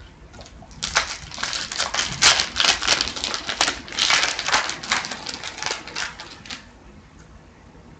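Wrapper of an Upper Deck hockey card pack being torn open and crinkled: a dense run of crackles starting about a second in and lasting about six seconds.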